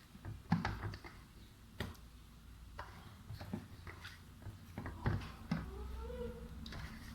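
Sticky bread dough being kneaded by hand in a parat, giving irregular slaps, clicks and knocks as it is pressed and folded.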